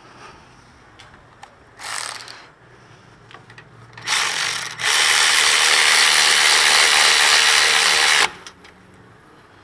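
Milwaukee cordless electric ratchet spinning a brake caliper bolt in. A brief burst comes about two seconds in, then a steady run of about four seconds with a short break near its start, cutting off suddenly.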